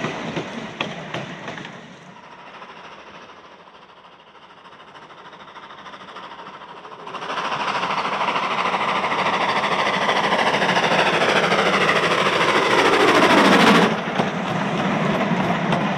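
Vintage train hauled by an LBSCR Terrier 0-6-0T tank engine passing close. Carriage wheels click over the rail joints at first, and after a quieter spell the train comes by loudly with a sound that drops in pitch as it passes. The carriages then roll by steadily.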